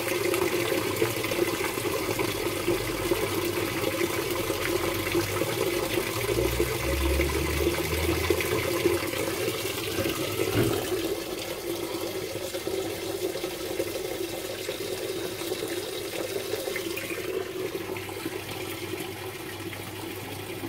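Water running steadily into the tub of a Whirlpool top-loading washing machine as it fills.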